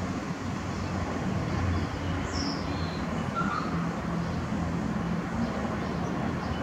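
Steady outdoor city background: a distant traffic rumble with a low hum, and a few faint high chirps about two to three seconds in.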